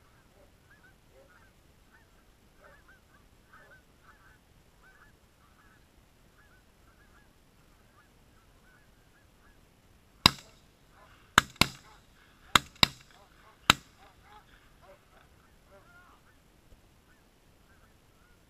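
A flock of Canada geese honking, then six shotgun blasts fired in quick succession about ten seconds in, some in close pairs, over roughly three and a half seconds. The geese keep honking through and just after the shooting.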